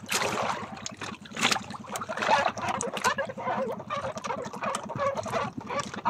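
Seawater sloshing and gurgling against the side of a small wooden outrigger boat, in irregular bubbly bursts with a few sharper splashes.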